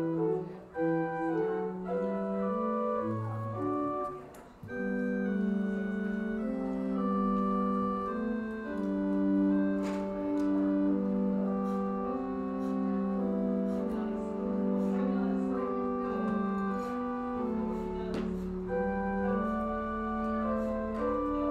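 Church organ playing sustained chords under a slowly moving melody, the closing music of the service.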